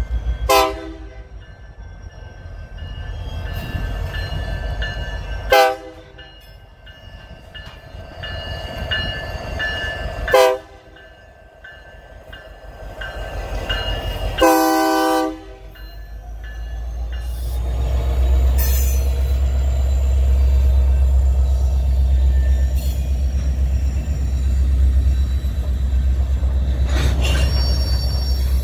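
Diesel locomotive horn sounding four blasts about five seconds apart, the last one longest, as a BNSF GP60M-3 locomotive pulls cement hopper cars past. After the locomotive passes, the engine and rolling cars make a steady low rumble.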